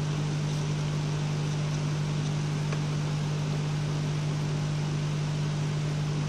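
Steady low hum with an even hiss, unchanging, like a small motor or fan running.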